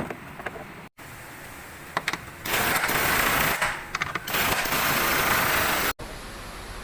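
Impact wrench running in two long bursts, each about a second and a half, with a brief stop between them, working the bolts of a rear shock absorber. A couple of sharp clicks come just before it.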